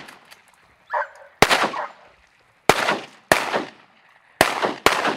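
Shotguns firing at ducks: five sharp shots at uneven intervals, each followed by a short echo that dies away. A brief call sounds about a second in.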